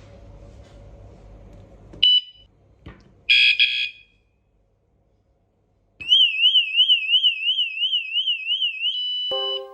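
Bike tail light's built-in anti-theft alarm. A short high beep comes about two seconds in and a fuller beep a second later as the alarm mode is set. From about six seconds a loud electronic siren warbles up and down about three times a second, then settles into a steady tone near the end.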